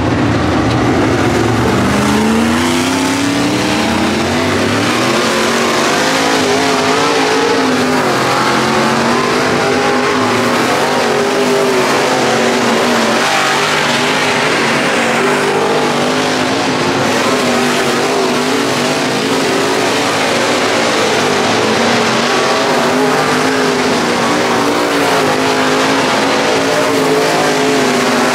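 Super late model's all-aluminium V8 race engine running hard on a dirt track. It climbs in pitch about two seconds in as it accelerates, then holds high revs that rise and fall with the throttle through the corners.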